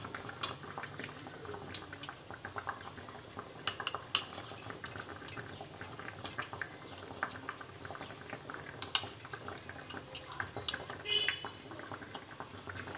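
Metal spoon clinking and scraping against a glass bowl and a steel tiffin box while semolina batter is spooned in, many light clinks scattered throughout. Underneath is a faint steady bubbling of water simmering in the steamer pot.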